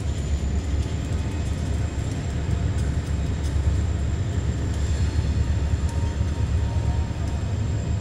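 Freight train cars rolling across a steel truss railroad bridge: a steady low rumble, with scattered faint clicks and a thin high tone running above it.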